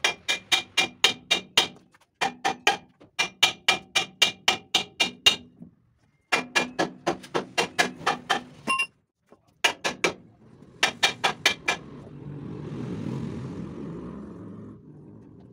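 Hammer blows on steel truck suspension parts, struck rapidly at about four a second with a metallic ring: three long runs, then two short ones, as the balance beam is knocked loose for removal. Near the end a rushing noise swells and fades over about three seconds.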